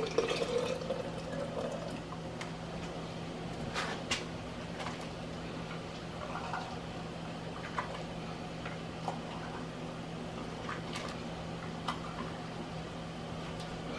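Hot water poured through a plastic funnel into a glass canning jar, the filling note rising over the first two seconds. After that come scattered light clicks and knocks over a steady low hum.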